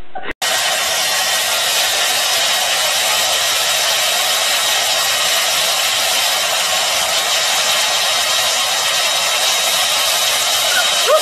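Hand-held hair dryer blowing steadily, a loud even rushing with a faint high whine from its motor, starting abruptly half a second in.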